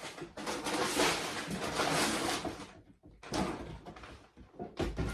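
Sealed plastic bags of LEGO pieces being tipped and slid out of a cardboard box, a continuous rustling rattle for about two and a half seconds, then a short pause and more shorter rustles.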